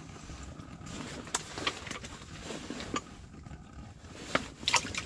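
Sharp clicks and taps from handling a small fish and the rod while unhooking the fish, over a low steady hiss. The taps come irregularly, with a quick cluster of the loudest ones near the end.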